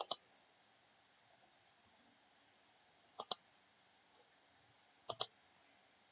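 Computer mouse clicking: three double clicks about two seconds apart, over faint steady hiss.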